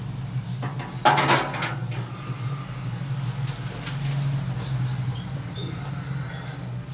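A short clatter or scrape of parts being handled, about a second in, followed by a few light knocks, over a steady low hum.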